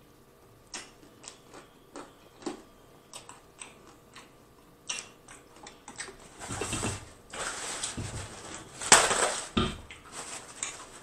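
Close-miked eating sounds: wet lip smacks and mouth clicks of chewing fried chicken and licking fingers, a few a second. About six seconds in, paper-towel rustling takes over, louder and noisier, loudest near the end.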